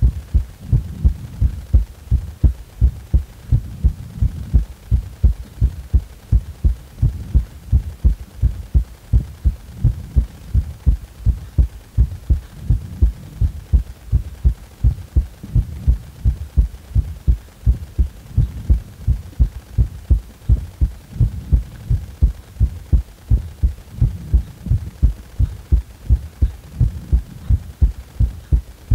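Human heartbeat: a steady, regular series of low, dull thumps.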